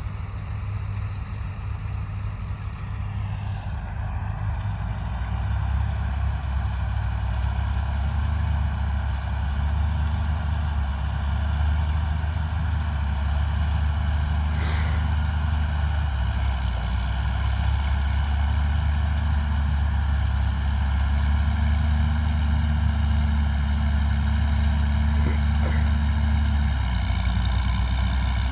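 Diesel engine of large harvest machinery running steadily under load. The engine note rises about four to six seconds in, shifts slightly near the end, and there is one short click about halfway through.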